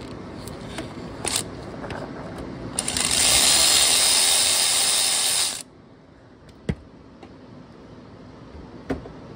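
An impact gun hammers for about three seconds on the A/C compressor clutch's centre bolt, trying to break it loose, then stops abruptly. A few light clicks come before it and one after it.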